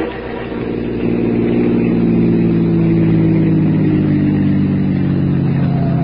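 Car engine running, its pitch slowly falling as the car slows down.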